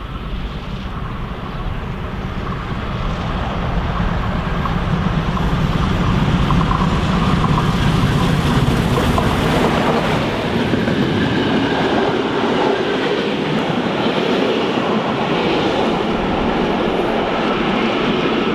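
Steam train with a DR class 41 2-8-2 locomotive drawing near and passing close at speed. The rumble and rattle of the engine's running gear and the coaches' wheels on the rails grows louder over the first few seconds, then holds steady as the train goes by.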